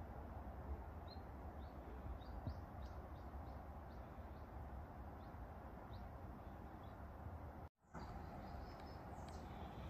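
Faint, short, high chirps of small songbirds, a dozen or so scattered notes, over a steady outdoor background hiss. The sound drops out completely for a split second near the end.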